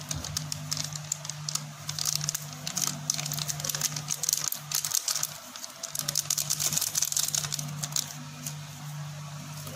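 Plastic sachet crinkling and crackling as gloved hands squeeze and shake bleaching powder out of it into a bowl, with dense irregular crackles that thin out near the end.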